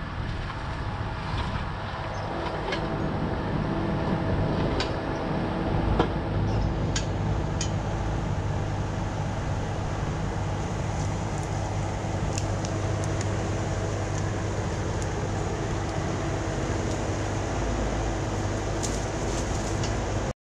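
Bobcat E26 mini excavator's diesel engine running steadily under work, with scattered sharp clicks and a louder knock about six seconds in. The sound cuts off abruptly just before the end.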